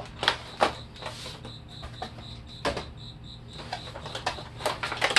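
Clear plastic blister packaging being slid out of a cardboard box and pried open, giving scattered sharp crackles and clicks. Through the middle, a faint high chirping pulses about five times a second.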